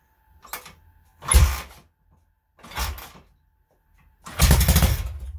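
Rebuilt Soviet K-750 side-valve flat-twin motorcycle engine being kick-started: four kicks, each turning it over in a short rumbling burst, the last about a second long and the loudest, without the engine catching and running.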